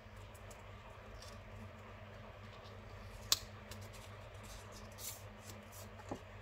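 Faint rustling of a small paper envelope being opened and photocards slid out of it, with one sharp click about three seconds in, over a steady low hum.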